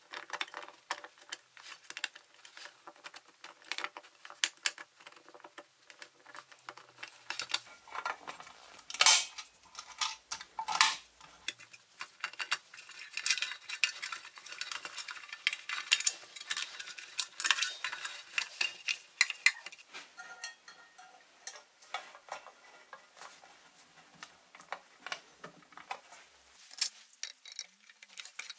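Small metal parts of a restored toy dump truck and trailer clinking and clicking as they are handled and fitted together. Many light taps and clicks, with louder knocks about nine and eleven seconds in.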